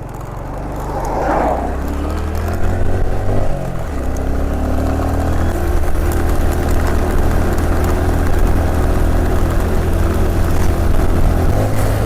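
Motorcycle engine running under way, its pitch rising as it speeds up, dropping at a gear change about four seconds in, then holding fairly steady.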